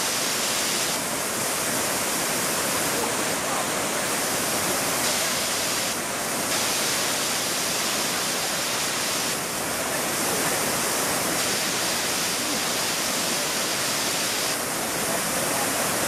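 Waterfall pouring down a rock face into a pool: a steady rush of falling water.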